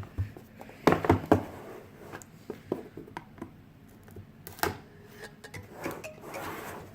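Cardboard retail box being handled and opened: scattered taps and knocks, a cluster of them about a second in, and a soft sliding scrape near the end.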